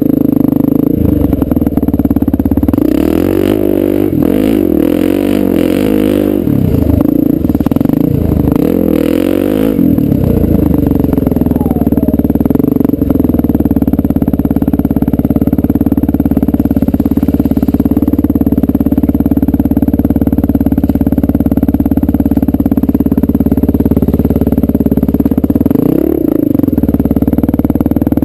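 1998 Honda XR400R's air-cooled four-stroke single-cylinder engine under way on a dirt trail. The revs rise and fall repeatedly through the first ten seconds or so, then hold steady, with one brief rev-up and drop near the end.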